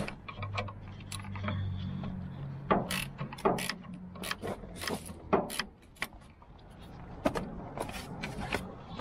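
Hand wrench working the bolts of a tractor's engine side panel: irregular metal clicks and clanks of the tool and loosened hardware. A low steady hum sits under the first half and stops about five and a half seconds in.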